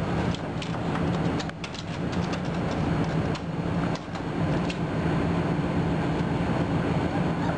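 Puppy claws clicking and scrabbling on hard plastic crates, scattered ticks mostly in the first half, over a steady low hum.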